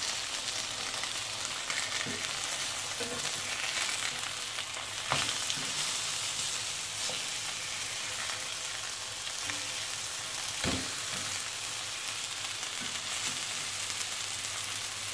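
Chicken burger patties sizzling steadily as they fry in a pan, with a few sharp knocks of a spatula against the pan as they are turned.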